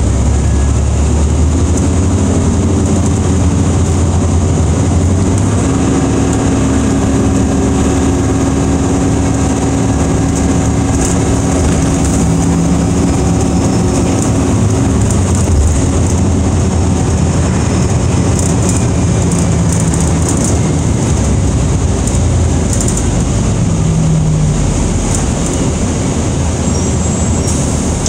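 Cabin noise inside a moving city bus: a steady low rumble of engine and road, with a hum that holds for several seconds and then drops away. Light rattles and clicks from the bus fittings come through now and then.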